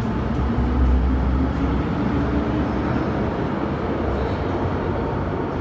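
MTR M-Train electric multiple unit running through an underground station without stopping: deep wheel rumble with a faint traction-motor whine rising in pitch. The rumble falls away about two seconds in as the train clears the platform.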